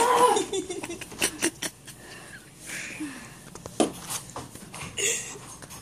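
A person's short cry with falling pitch, followed by scattered knocks and thumps and a few brief vocal noises.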